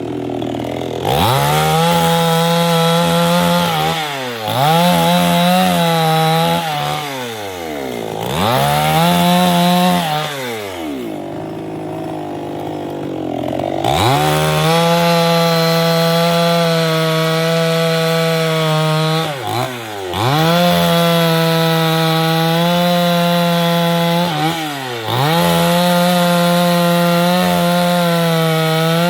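Chainsaw engine revved up to full throttle and let fall back toward idle three times in quick succession. About halfway through it is held at a steady full-throttle pitch for several seconds at a time, with brief dips, as when cutting wood.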